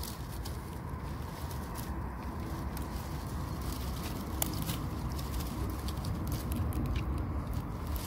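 Dry grass stems and pine needles crackling and rustling as a hand parts them and picks chanterelle mushrooms, in irregular sharp clicks over a steady low rumble.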